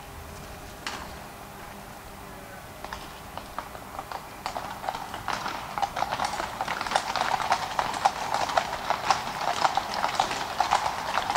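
Horses' hooves on cobblestones as a team of black horses pulls a carriage away. A few scattered steps come first, then steady clip-clop builds from about four seconds in and grows louder.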